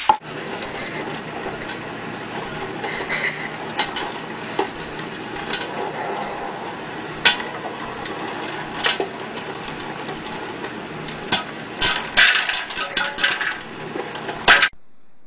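Popcorn popper with a clear dome lid popping corn. A steady sizzle runs under sharp pops that come one at a time at first, then quick clusters of pops near the end before the sound cuts off suddenly.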